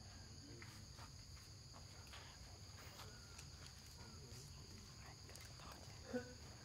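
Faint steady chorus of insects, a high even drone, with scattered soft clicks and one brief louder sound about six seconds in.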